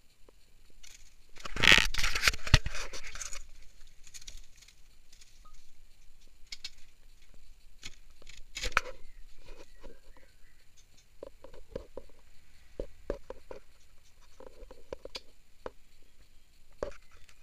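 Hands handling a wooden nest box: a loud scraping rustle lasting about two seconds, a couple of seconds in, then scattered light knocks, taps and clicks.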